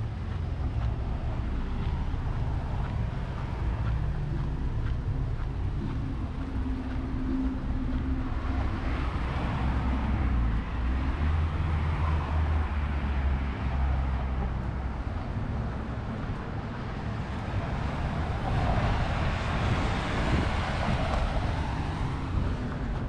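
City street traffic: cars driving through an intersection over a steady low rumble, with passing vehicles swelling up and fading twice, around the middle and again near the end.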